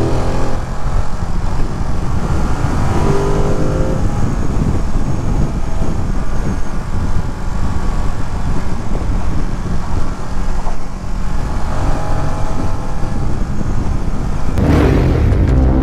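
Ducati Monster V-twin motorcycle engine under way, rising in pitch several times as it accelerates through the gears, over steady wind and road noise on the rider's microphone. The sound changes abruptly about a second before the end.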